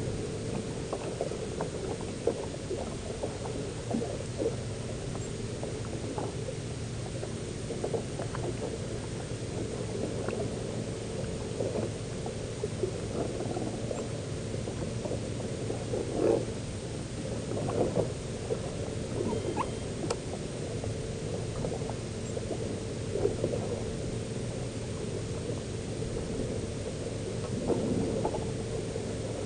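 A boat's steady low mechanical hum, with short squeaks and light clicks every few seconds.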